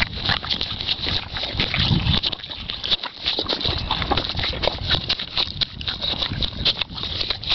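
Thoroughbred horse licking and lipping molasses and oats off a person's hand: a steady run of quick wet clicks and smacks.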